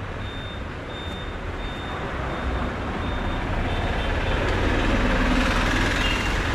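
Street traffic with a motor vehicle passing close, its noise growing louder through the middle, while a high electronic beep repeats at an even pace.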